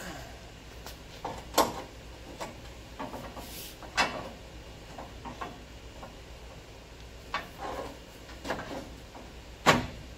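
Long steel pry bar clanking and scraping against the torsion bar key and crossmember of a Chevy truck as the new key is levered into line. There are several sharp metal knocks with a short ring; the loudest come about a second and a half in, at four seconds, and near the end.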